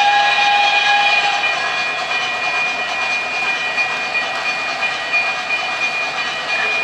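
O gauge model trains running on the layout, giving a steady hiss and rolling noise with a high whine throughout. A locomotive sound system's whistle tone carries on from before and ends about a second and a half in.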